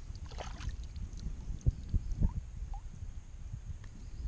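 A small smallmouth bass splashing at the water's surface beside the boat as it is lifted and taken in hand to be unhooked, with a few dull knocks about halfway through over a low steady rumble.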